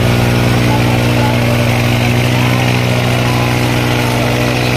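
Diesel engines of a Swaraj 855 XM and an old Eicher 5660 tractor running together in a steady, loud drone as the two strain against each other, coupled back to back in a tug-of-war pull.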